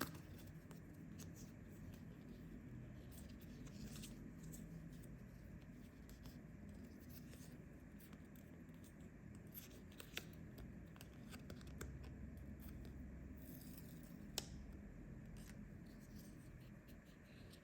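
Faint clicks, scratches and light rustling of hands handling Kinder Joy egg packaging and small plastic parts, with a couple of sharper clicks, one about ten seconds in and another about four seconds later.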